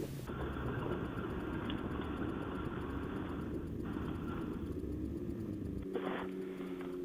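Snowmobile engine running as a steady low rumble; a steadier, evenly pitched engine hum comes in about six seconds in.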